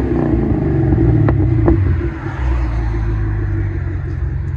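Chevy Camaro SS 6.2-litre V8 through a true dual exhaust with an X-pipe, resonator delete and Flowmaster Flow FX mufflers. The revs fall back from a blip at the start, then it idles with a deep, steady rumble. Two light clicks come about a second and a half in.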